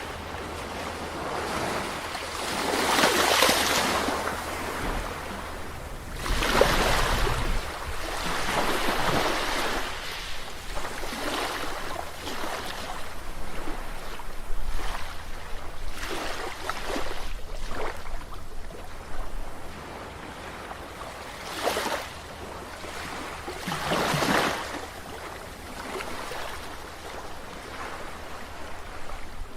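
Ocean surf: waves breaking and washing in, each surge swelling and fading every few seconds, over a low steady rumble.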